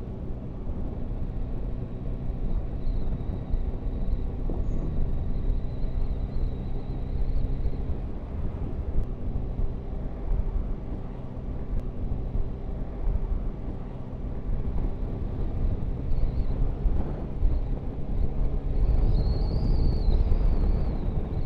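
Yamaha Tracer 9 GT's three-cylinder engine running at a steady cruising note while riding, with wind and road noise rushing over the microphone. It grows louder near the end.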